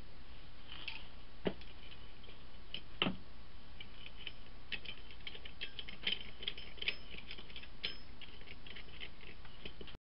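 Small clicks and taps of small parts being handled on a workbench, with two louder knocks about one and a half and three seconds in, over a steady hiss.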